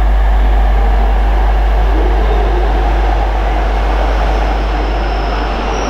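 Shinkansen bullet train running into the station alongside the platform: a steady rushing rumble of its passage. A thin high whine comes in near the end.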